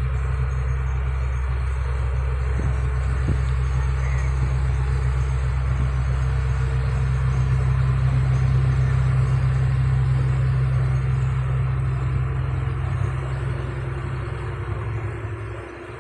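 Heavy engine running with a steady low drone, growing a little louder around the middle and falling away near the end.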